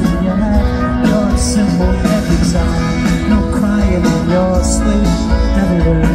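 Live pop-rock band playing through a large outdoor stage PA, heard from amid the crowd, with a strong, steady bass.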